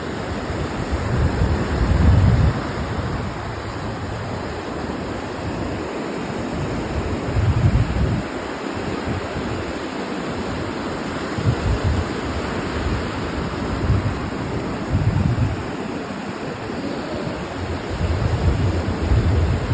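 Ocean surf washing steadily on a beach, with louder low rumbles coming irregularly every few seconds.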